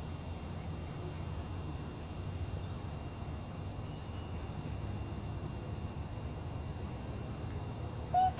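Crickets chirping steadily in a fast, even, high-pitched pulse over a low background rumble. A brief, louder call cuts in near the end.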